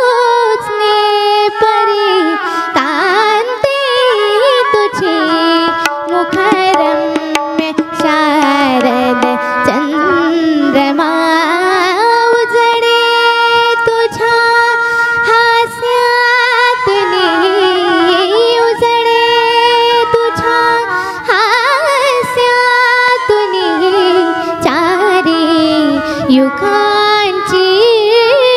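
A girl singing an ornamented, melismatic vocal passage in Indian classical style, with long held notes and rapid runs, over instrumental accompaniment.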